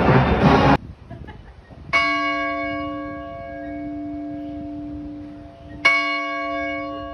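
Music cuts off under a second in. Then a large chapel bell hung in a tower, rung by pulling its rope, strikes twice about four seconds apart, each stroke ringing on and slowly fading.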